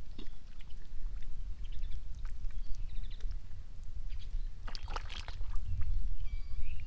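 Hands digging and groping in wet mud, with scattered squelches and a burst of wet sloshing about five seconds in, over a steady low rumble.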